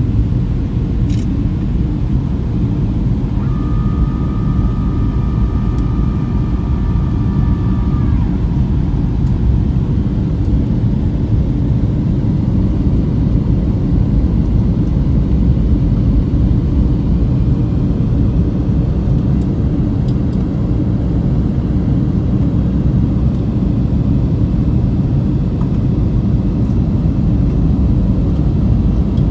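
Airplane cabin noise in flight: a steady low rumble of engines and rushing air, with a faint high tone held for a few seconds near the start.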